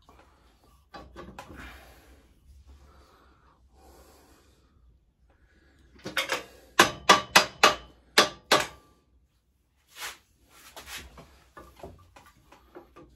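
Hand tools at work on a pit bike's swing arm bolts: quiet handling clatter, then midway a quick run of sharp knocks, about four a second, and a few softer ones near the end.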